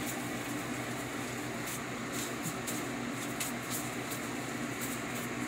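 Steady background hum of a running fan-like appliance, with a few faint light ticks of dough being handled in a plastic-gloved hand.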